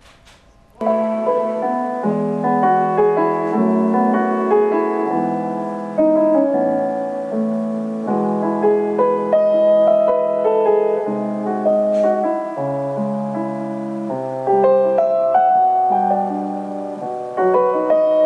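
Instrumental keyboard music with piano-like held notes, starting about a second in.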